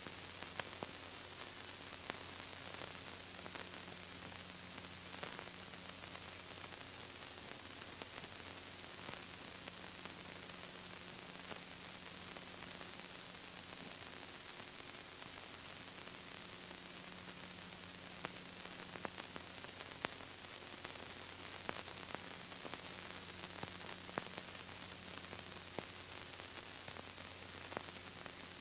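Steady hiss and static from an old videotape transfer, with a low electrical hum and scattered faint clicks.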